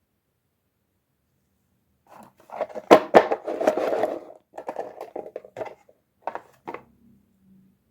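Packaging being handled during a toy unboxing: scratching, crinkling and scraping with sharp clicks, the loudest a pair of clicks about three seconds in, starting after two seconds of silence and dying away near the end.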